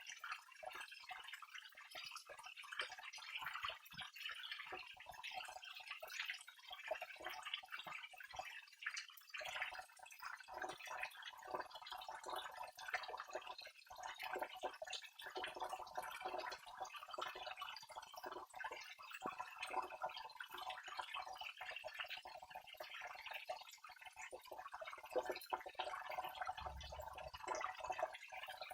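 Waterfall: a steady rush of falling water, flecked with many small splashes.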